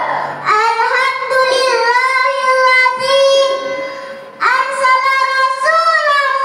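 A young girl singing solo in a high voice, holding long drawn-out notes in two melodic phrases with a brief break about four seconds in.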